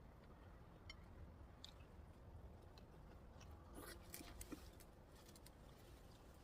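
Near silence with a few faint, scattered clicks and soft chewing sounds from someone eating.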